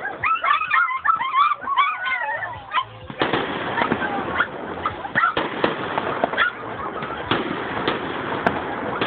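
Fireworks display: for the first three seconds a cluster of high gliding calls, then from about three seconds in a dense crackle of bursting fireworks with many sharp bangs.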